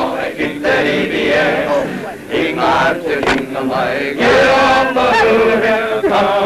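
A group of Maori performers chanting together in Maori, the voices rising and falling in pitch, with some long held notes in the second half.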